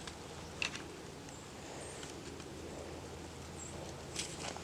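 Quiet open-field ambience with faint rustling, a couple of soft clicks and a few brief, faint high chirps.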